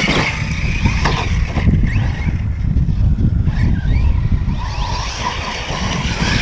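Large RC trucks' brushless electric motors whining, rising and falling in pitch as they are driven on dirt, over a heavy low rumble.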